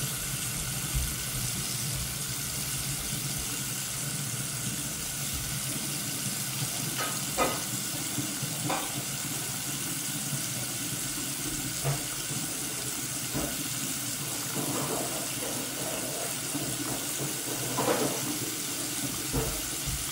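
Water running steadily from a sink tap over a toy's dig-out block to soften it, with a few faint clatters.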